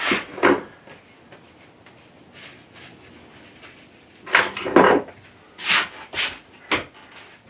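Tools and small parts being handled on a workbench: short knocks and clatters, a few at the start, a cluster about four to five seconds in and a few more around six seconds.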